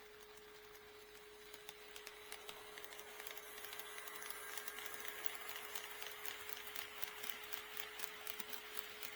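HO-scale model train running on KATO Unitrack, its wheels clicking over the rail joints. The clicks grow louder and closer together from about three seconds in as the train approaches, over a steady hum.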